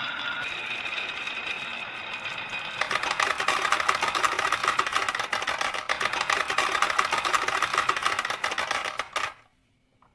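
Marbles rolling along a marble run track with a steady ringing rumble, then a dense rapid clatter of many marbles clicking down the run from about three seconds in, stopping abruptly near the end.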